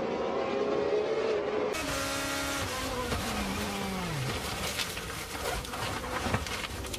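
GP2 single-seater race car engines running at high revs. Then one car's engine note falls steadily in pitch over about two and a half seconds as it slows, followed by irregular knocks and clicks as it runs off the track.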